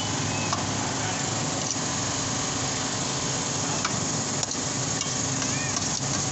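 Steady sizzle and hiss from a shawarma stand's vertical rotisserie broiler as chicken is carved off the spit. A few light clicks of metal tongs and knife against the steel tray sound over it.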